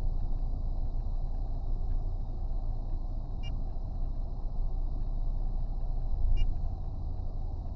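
Steady low rumble of a vehicle with its engine running, heard from inside, with two short electronic beeps about three seconds apart.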